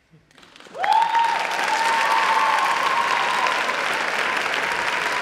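Audience applause breaks out about a second in and carries on steadily, with one long high-pitched cheer held over the clapping.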